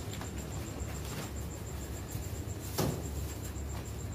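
Night-time street ambience: a steady low rumble under a rapid, evenly pulsing high trill of crickets, with one sharp knock nearly three seconds in.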